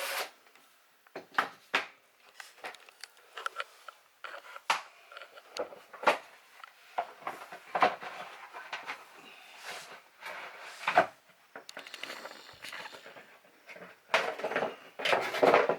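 Irregular knocks, clicks and scrapes of hand work on an RV toilet as a part is pried and pulled off, with a denser, louder clatter near the end.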